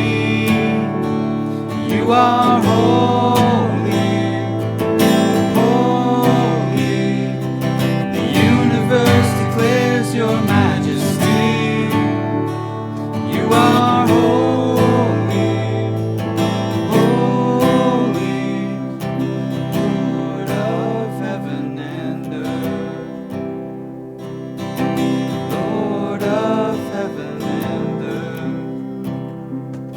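Music led by strummed acoustic guitar, with a melody line gliding above the chords.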